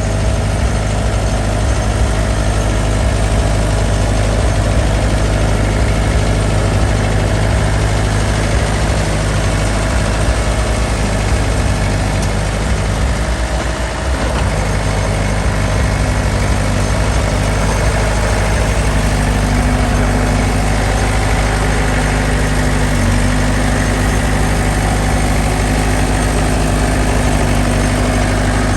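Bulldozer's diesel engine running steadily with a low drone, dipping briefly about halfway through.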